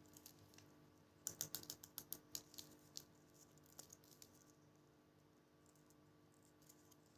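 A quick run of light, sharp clicks and taps, about a second and a half long, then a few scattered ticks before it falls quiet.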